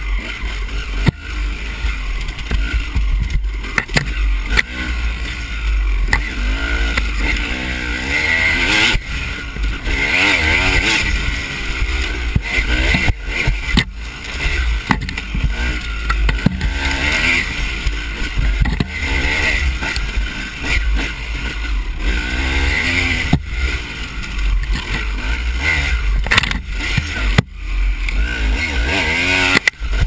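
Off-road dirt bike engine revving up and down as it is ridden hard along a rough trail, heard from a camera mounted on the bike, with heavy wind rumble on the microphone and frequent knocks and rattles from bumps.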